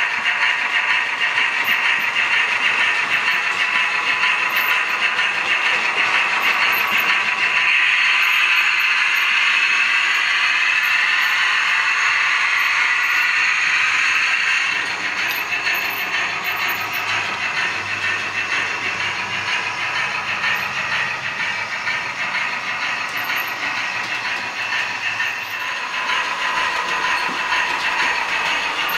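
Model railway trains running on the layout's track: a steady whirr of small motors and wheels rolling and clicking over the rails. It drops a little in level about halfway through and picks up again near the end.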